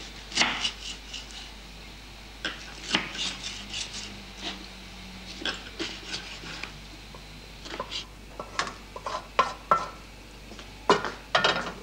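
Small kitchen knife cutting a tomato on a wooden cutting board, an irregular series of short clicks and scrapes as the blade taps the board. Near the end, a cluster of louder clanks as a spoon stirs a metal saucepan on the stove.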